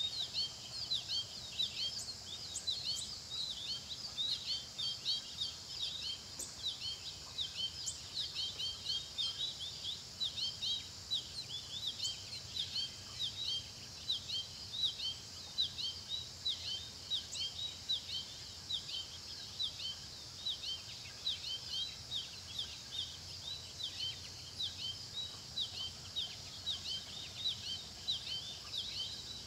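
Small songbirds chirping continuously: a dense stream of short, high chirps, several a second, overlapping one another.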